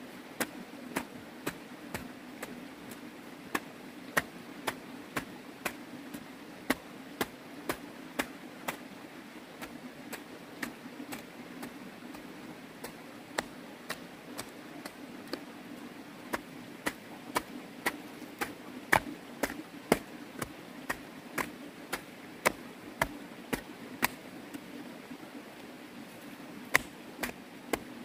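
Digging tool chopping into the ground again and again, about two sharp strikes a second with a few short pauses, over a steady low hum; the strikes grow louder near the end.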